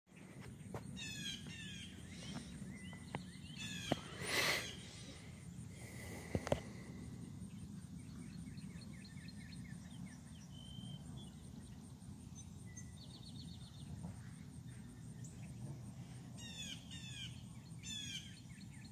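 Wild songbirds singing and chirping, with repeated quick runs of falling notes, over a steady low background rumble. A louder, harsher sound stands out briefly about four seconds in.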